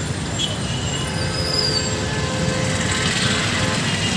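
Road traffic running past: motorcycle and auto-rickshaw engines and tyre noise as a steady wash, with a brief faint high squeal about a second and a half in.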